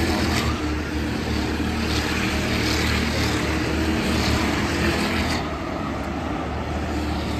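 A field of race cars lapping a short oval, their engines blending into one steady drone.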